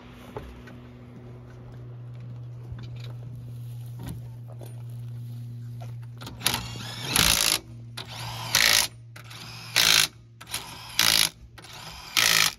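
Cordless impact wrench fastening the wheel of a Toyota GR Yaris rally car during a tyre change: about five short rattling bursts in the second half, the first the longest, over a steady low hum.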